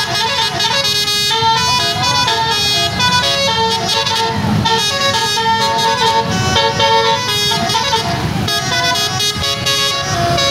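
A bus's basuri telolet horn playing a tune: a steady run of short notes stepping up and down in pitch, over the rumble of engines in stopped traffic.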